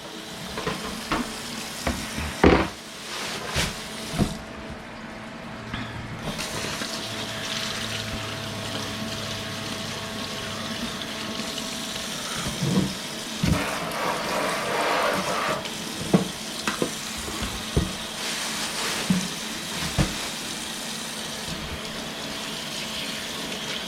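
Fish frying in hot oil with a steady sizzle, under the clatter of dishes and utensils being handled and water running at the sink during kitchen cleanup.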